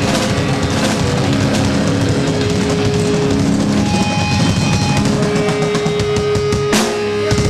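Heavy metal band playing live: distorted electric guitars, bass and drum kit, loud and dense, with held guitar notes. A loud crash about three-quarters of the way through.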